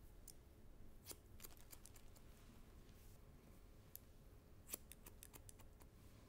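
Faint snips of hair-cutting shears closing on hair, in two quick runs of several snips each, one about a second in and one near five seconds in, with a single snip between them.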